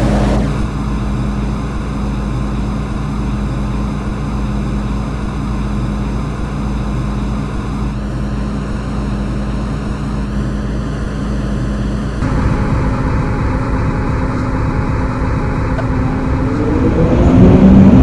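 MTR M-Train electric multiple unit standing with a steady electrical hum; about twelve seconds in the sound steps up. Near the end its traction motors start a rising whine as the train pulls away.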